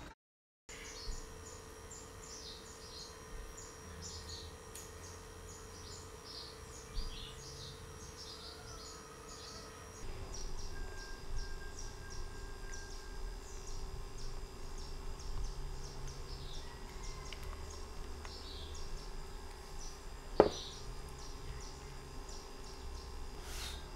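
Small birds chirping in short, high, falling calls at an irregular pace, over a steady low hum. One sharp knock comes about twenty seconds in.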